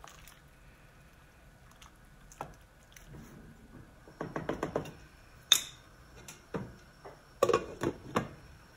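Quiet stirring with a wooden spoon in a pot of soup, then a few short knocks and clinks, the sharpest about halfway through, as a glass lid is handled and set onto the metal pot near the end.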